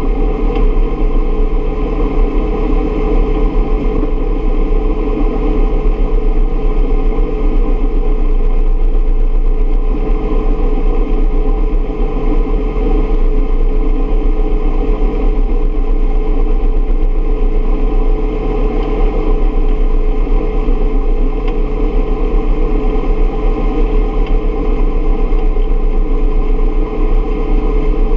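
Steady, loud cabin noise of a Bell UH-1 Huey helicopter in flight: the turbine engine and rotor running, with a constant whine and a heavy low drone.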